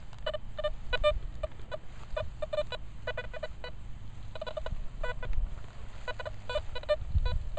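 Nokta Velox One metal detector chattering: a string of short, irregular beeps, several a second, as the coil sweeps. These are false signals, which the user puts down to electromagnetic interference (EMI) from nearby buildings or a school.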